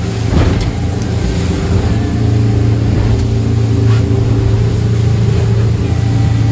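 Boat engine running steadily under way, a constant low drone, with the rush of water and wind around the hull.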